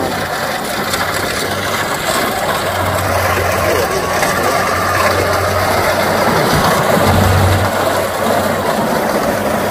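Kubota DC70 rice combine harvester running steadily as it cuts rice, its diesel engine and threshing machinery working under load.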